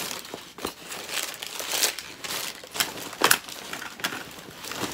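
Plastic packaging crinkling and crackling as it is handled, in irregular bursts with a sharper crackle about three seconds in.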